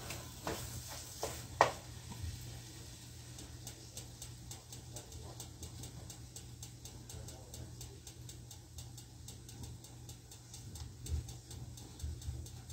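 Wooden spoon knocking and scraping in a frying pan of eggplant and stew, a few knocks in the first two seconds with one louder clack, then a quiet frying sizzle with a faint, fast, even ticking over a low steady hum.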